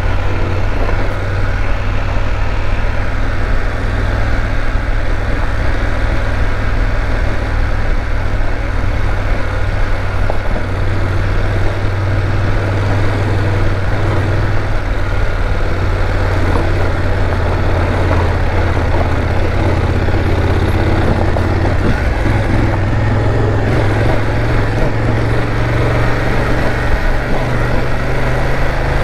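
BMW F850GS parallel-twin engine running at low revs in second gear while the motorcycle rolls slowly along a dirt road. The low engine drone is steady, steps up slightly about three-quarters of the way through, and carries a hiss of wind and road noise over it.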